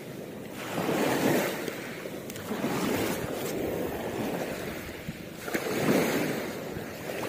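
Small waves washing in at the shoreline, swelling and easing every few seconds, with wind on the microphone and a few light clicks.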